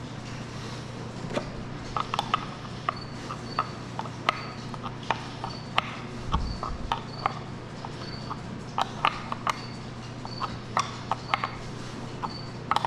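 Irregular clicks and knocks of plumbing fittings being handled and screwed together, over a steady low hum. From about three seconds in, faint short high chirps repeat roughly twice a second.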